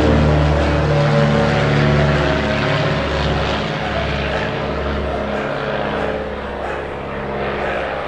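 The twin six-cylinder Continental O-470 piston engines of a Cessna 310A at takeoff power: a steady propeller drone with a layered engine note that gradually fades.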